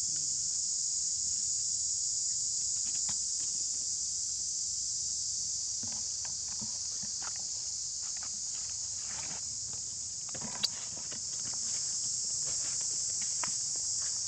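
A steady high-pitched insect chorus, with light rustling of dry leaf litter under a young monkey's steps and one sharp click a little past the middle.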